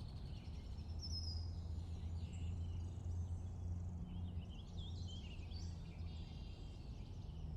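Background ambience: a steady low hum with faint, scattered bird chirps.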